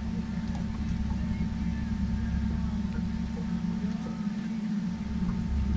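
Outboard motor pushing the boat at trolling speed: a steady low rumble with a faint steady whine over it.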